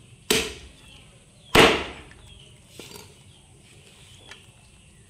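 Meat cleaver chopping goose meat: two loud chops about a second apart, then a few lighter knocks.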